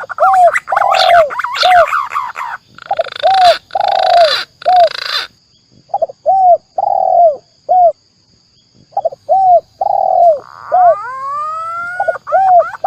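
Spotted dove (tekukur) and green pigeon (punai) lure calls: a string of short, low, arched coos, mixed with rising whistled glides. Three short raspy hissing bursts come a few seconds in, and there is a brief pause past the middle.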